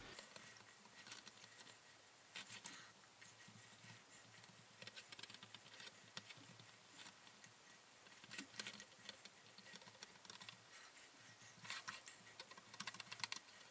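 Faint, irregular scraping and patting of a silicone spatula pressing a buttery biscuit-crumb base against an enamel pie dish, otherwise near silence.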